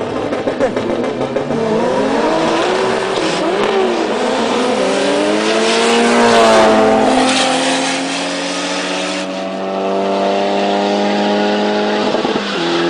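An Opel Corsa 2.0 turbo and a VW Golf VR6 turbo drag racing at full throttle. The engine note climbs in pitch in several steps as they shift up, is loudest as they pass about six seconds in, then drops to a lower, steady note as they pull away.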